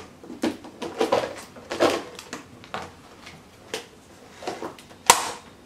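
A clear plastic egg storage box being opened and its egg trays lifted out: a string of light plastic clicks, clatters and rustles, with a sharper click about five seconds in.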